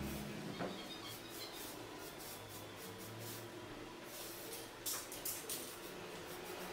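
Aerosol spray-paint can hissing in many short bursts as lines are sprayed onto a wall, with a few faint clicks and knocks.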